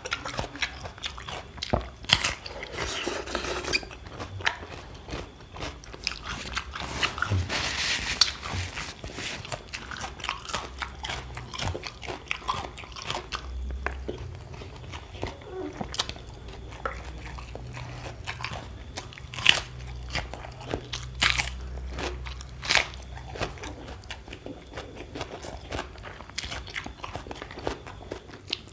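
Close-up eating sounds: a person biting and chewing crunchy food, with many sharp crunches throughout and a busier run of crunching about three seconds in and again about eight seconds in.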